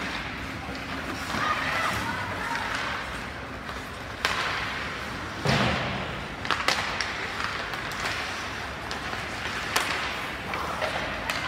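Scattered thumps and knocks over a murmur of faint voices, the loudest thump about five and a half seconds in.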